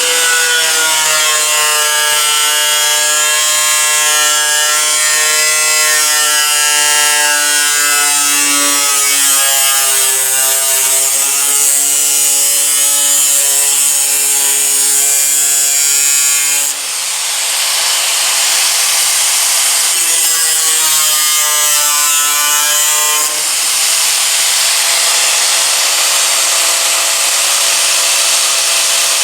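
Power cutting tool running under load as it cuts the rust hole out of a steel sheet-metal hood, its pitch wandering up and down as the load changes. About two-thirds of the way through the tone drops away briefly, leaving a rougher hiss, then resumes.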